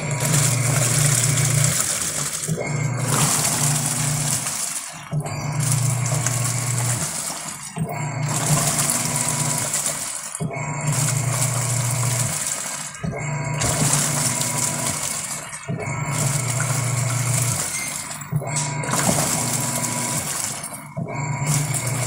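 Top-load automatic washing machine agitating in its wash cycle. The motor hums and the water churns, stopping briefly and reversing about every two and a half seconds. The machine is washing normally on a replacement controller board.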